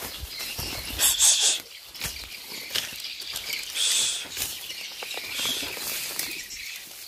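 Tall grass, ferns and dry fronds rustling and swishing as someone pushes through dense vegetation, in several bursts with small crackles, the loudest about a second in and again about four seconds in.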